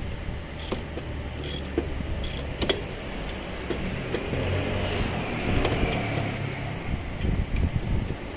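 Scattered metallic clicks and knocks of hand tools and scooter front-fork parts being handled, over a low hum that swells around the middle.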